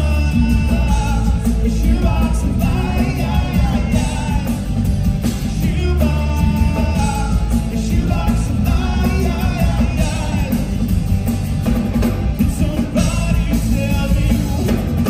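Live rock band playing a song, with a man singing lead over acoustic guitars, electric bass and drums; the bass and drums are heavy.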